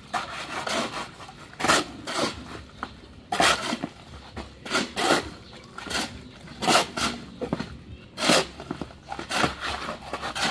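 Concrete being mixed by hand with hoes and shovels: repeated scraping strokes of the blades through the wet mix and across the concrete ground, roughly one a second.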